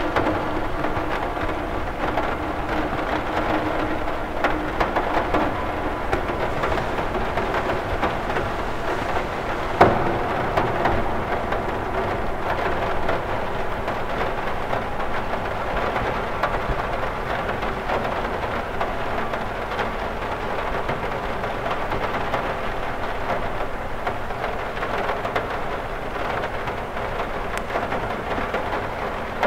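Steady rain falling on a cathedral window, an even wash of drops on the glass, with one sharper knock about ten seconds in.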